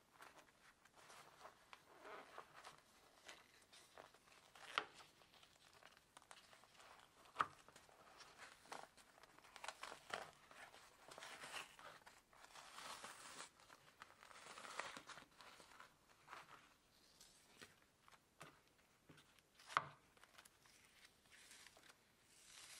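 Old synthetic cover and crumbling foam padding being peeled and torn off a bicycle saddle by hand: faint crackling and tearing, with a few sharp clicks.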